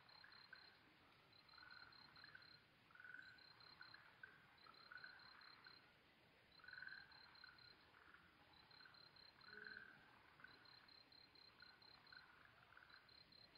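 Faint night chorus: frogs giving short, irregular calls, over an insect chirping in regular high-pitched trains of about five chirps a second, each train lasting about a second and repeating every two seconds or so.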